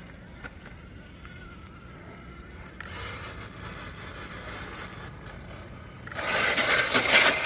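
Electric radio-controlled truck running, at first faint with a thin steady whine, then growing louder, and from about six seconds in a much louder rush of motor and drivetrain noise.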